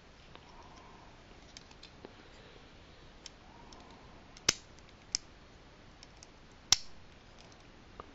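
Small hard-plastic clicks and ticks from a Micro Galaxy Squadron X-Wing toy being handled as its landing gear is worked. Two sharp snaps stand out, about four and a half and nearly seven seconds in, with a lighter click between them and another near the end.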